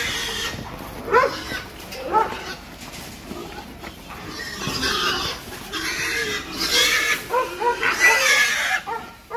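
Several pigs squealing in short, repeated cries, busiest in the second half, as they are driven with a metal sheet toward transport crates.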